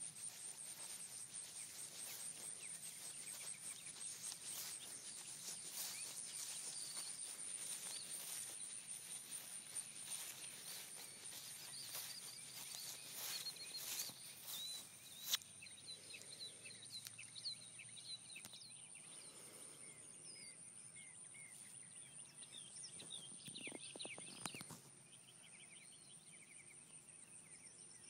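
Faint outdoor ambience: a steady high-pitched insect drone, with crackling rustles of movement through vegetation in the first half and small bird chirps in the second half.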